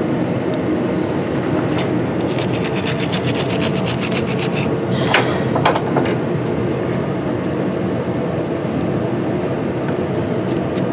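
Quick back-and-forth scraping on a battery cable terminal, cleaning corrosion off it, followed by a few sharp clicks. A steady shop hum sits under it.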